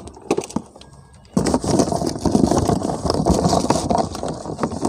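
A few light knocks, then from about a second and a half in, wind rumbling on the microphone for about three seconds.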